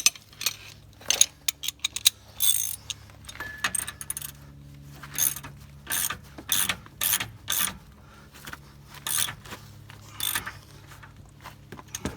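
Half-inch socket ratchet clicking in repeated back-and-forth strokes as it backs off an 18 mm shock-mount nut that has already been broken loose.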